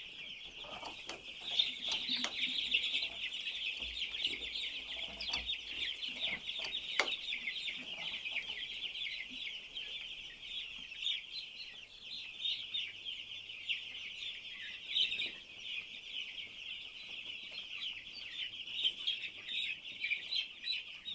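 A large flock of broiler chicks peeping without a break, a dense chorus of many overlapping high chirps.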